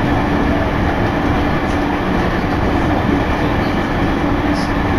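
Electric commuter train running at speed, heard from inside the carriage: a steady rumble of wheels and track with a constant low hum.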